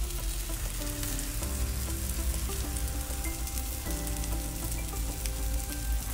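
Burger patties and bacon sizzling and crackling on a stovetop griddle over a gas burner, over soft background music with held chords that change a couple of times.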